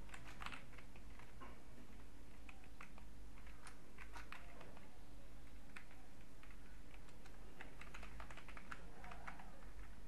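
Computer keyboard typing: faint, irregular keystrokes over a steady low hum.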